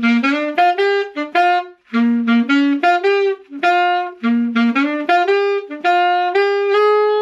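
Selmer Mark VI alto saxophone playing an unaccompanied B-flat blues line in three quick phrases with brief breaks, ending on a long held note. The line holds back the A-flat, the dominant seventh of B-flat 7, until the fourth bar.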